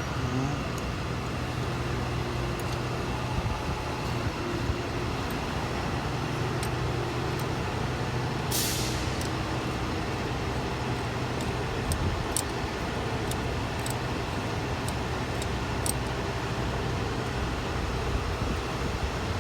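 A steady low mechanical hum, with scattered faint clicks and one short hiss about eight and a half seconds in.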